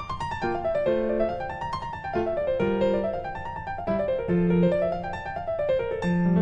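Background piano music: runs of notes rising and falling in repeating waves over low held bass notes.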